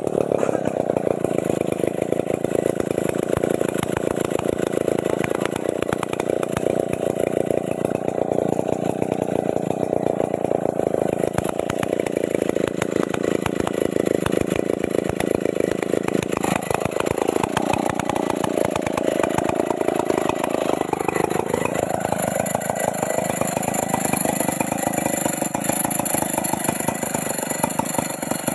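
Stihl MS 381 two-stroke chainsaw running hard at a steady high pitch. About sixteen seconds in, the engine pitch starts dipping and rising several times, then settles at a lower, steadier note near the end.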